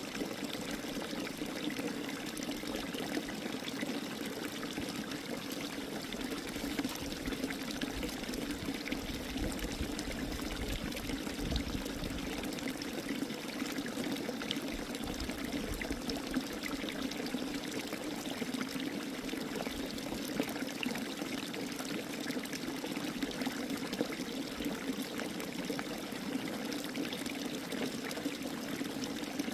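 Running water trickling steadily and evenly, like a small stream or spring spout.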